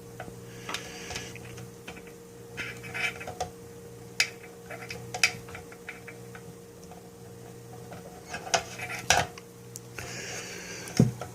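Scattered clicks, taps and light clatter of cables and plug connectors being handled and pushed into place, over a faint steady electrical hum.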